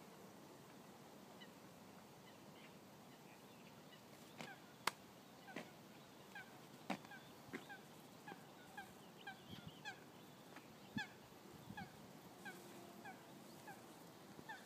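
Faint, repeated short honking calls of waterbirds on a lake, about two a second, starting about four seconds in. A few sharp clicks are heard among the first of them.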